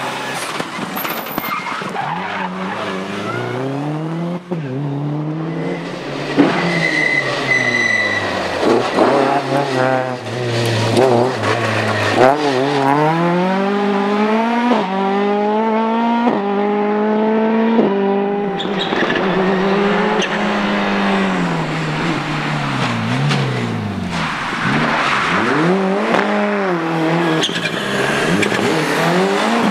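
Rally cars passing one after another at speed: a Subaru Impreza, then a Ford Escort Mk2, then a Nissan Sunny GTi-R. Their engines rev hard, climbing in steps through the gears and dropping away as each lifts off and passes.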